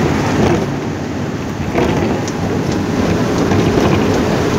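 A moving road vehicle heard from inside the cabin in heavy rain: steady engine and road noise with rain beating on the windows and body.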